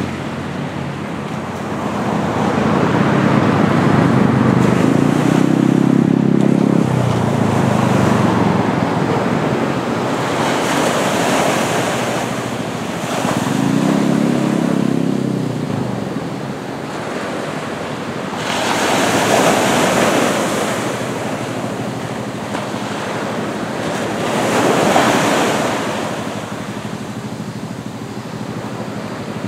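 Small ocean waves breaking and washing up the shore in slow swells every few seconds. A motor vehicle's engine passes twice in the first half.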